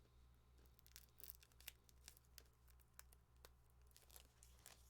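Faint scattered rustles and light ticks of a comic book being handled, over a low steady hum.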